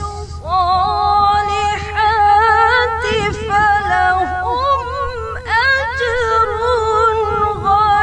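Female voice reciting the Quran in tarannum, the ornamented melodic style of Quranic chanting, holding long notes with wavering turns and glides between them.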